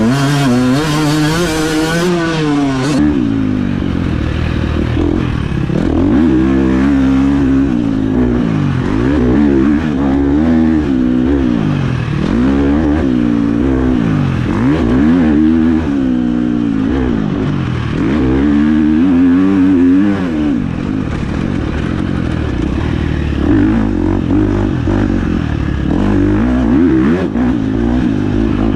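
1996 Honda CR125's single-cylinder two-stroke engine being ridden hard, its pitch climbing and dropping over and over every second or two as it revs out and shifts or backs off.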